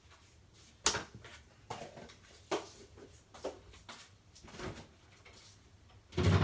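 A handful of separate knocks and clatters from household handling, a sharp one about a second in and the loudest near the end.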